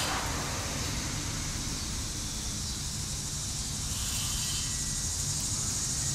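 Steady background noise: a low rumble under a constant hiss, with no distinct events.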